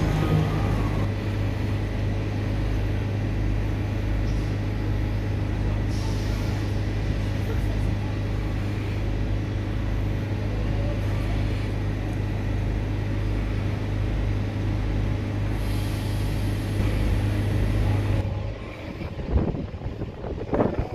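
Vintage diesel railcar set running as it moves slowly past: a steady, loud engine drone that drops away about eighteen seconds in, followed by a few sharp knocks.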